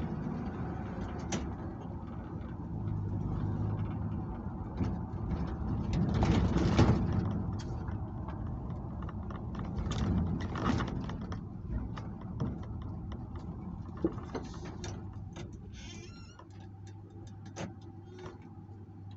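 Chevrolet C10 pickup truck engine running, a low hum that swells and eases, with scattered clicks and knocks.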